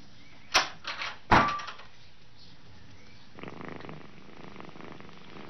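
A wooden puzzle box's latch and door clacking: three sharp knocks within about a second, the last and loudest with a brief metallic ring. About three and a half seconds in, a cat starts purring steadily.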